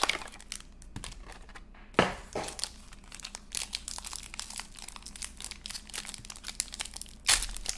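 Foil trading-card pack (2020 Panini Zenith) being torn open by hand: steady crinkling and crackling of the foil, with a sharper snap about two seconds in and another near the end.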